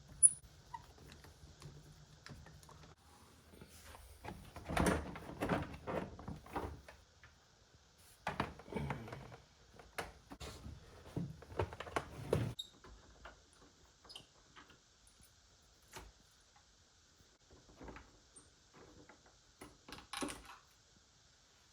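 Plastic motorcycle fairing panels and their fasteners being handled and pulled off: irregular clicks, knocks and scraping, busiest in the first half and thinning to scattered ticks later.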